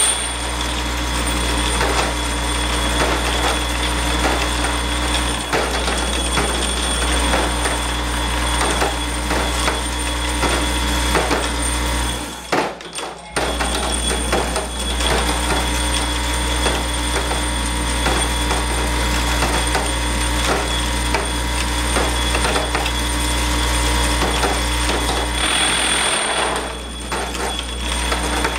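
Centerless grinder parts feeder running: a steady low machine hum under a continual clinking rattle of short metal pins moving through it. The hum cuts out for about a second just before halfway and dips again near the end.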